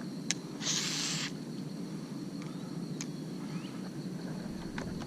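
Quiet outdoor ambience with a faint steady high insect-like drone, broken by a short hiss about half a second in and a few light clicks.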